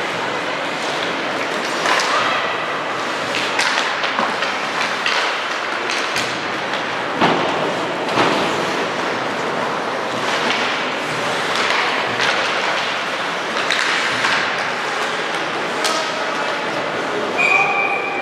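Ice hockey game in a rink: sharp knocks of sticks and puck against the ice and boards over a steady wash of skating and crowd noise, with a short whistle blast near the end.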